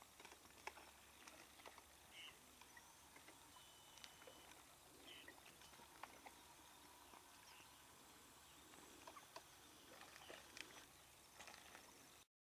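Faint outdoor ambience with scattered light clicks and a few soft, short high chirps a few seconds apart; it cuts to silence just before the end.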